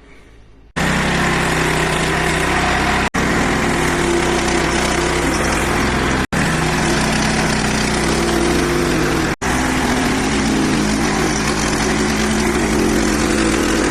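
Hud-Son HFE 30 bandsaw mill's engine running steadily under load as its band blade saws through a cherry burl. The sound starts about a second in and is heard in four stretches of about three seconds each, each one ending abruptly.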